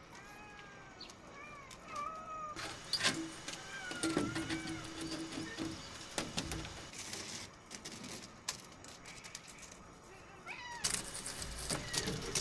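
Domestic cats meowing several times: a cluster of meows in the first couple of seconds, another about four seconds in, and one near the end, with some clicks and rustling around them.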